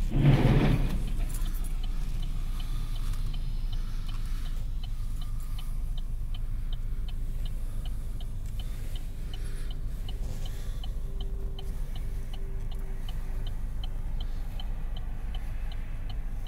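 Road noise inside a moving car's cabin, with the car's turn-signal relay ticking steadily about twice a second. A louder swell of noise comes in the first second.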